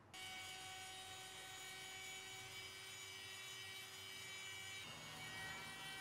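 Small handheld electric rotary tool running with a faint, steady high whine; its pitch shifts about five seconds in.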